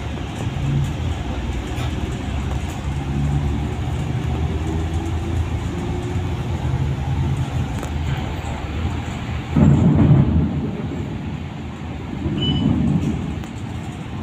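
Road traffic in light rain: a steady low rumble of vehicle engines with the hiss of the wet road. A louder vehicle surges past about ten seconds in, and a smaller one near the end.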